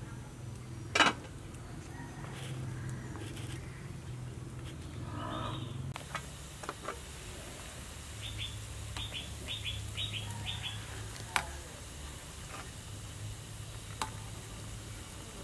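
A pot of soup at a rolling boil, with a steady low rumble and a metal ladle knocking against the pot a few times, loudest about a second in. A small bird chirps a quick run of about eight short notes a little past the middle.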